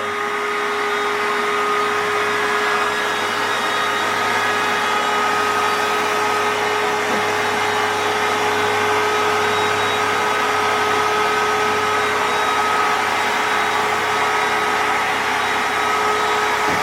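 Bestway air mattress's built-in electric air pump running steadily as it inflates the mattress: an even blowing whir with a constant-pitched hum.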